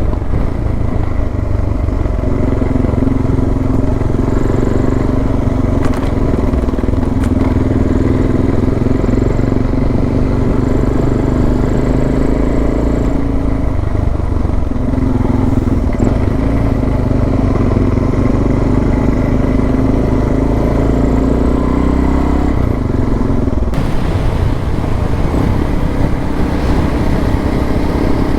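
Suzuki DR650 single-cylinder motorcycle engine running steadily under way. Its note shifts up a little about three-quarters of the way through.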